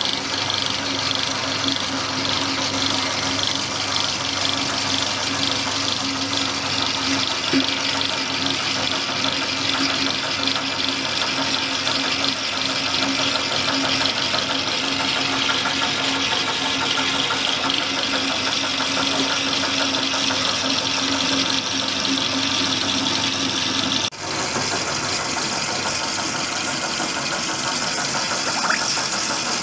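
Motor-driven mini feed-pellet press running steadily under load, pressing feed mash through its die plate into pellets, with a constant mechanical hum and grinding; the sound briefly drops near the end, then continues.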